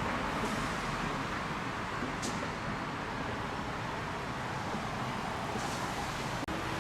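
Steady road traffic noise, an even hiss and rumble of passing vehicles, with a brief dropout near the end.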